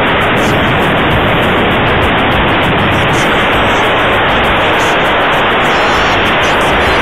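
Airflow rushing over the microphone of an onboard camera on a model glider in flight: a loud, steady, even hiss.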